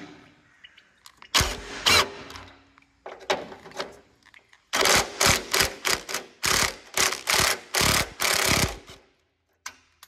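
Cordless impact wrench hammering off old grille bolts in short bursts: two separate bursts, then a quick run of repeated bursts from about five seconds in.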